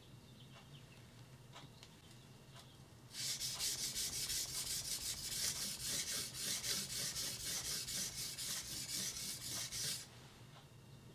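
Yanagiba blade rubbed back and forth on a natural blue whetstone (aoto): a steady run of quick strokes, about four a second. It starts about three seconds in and stops abruptly near the end, with only a few faint ticks before it.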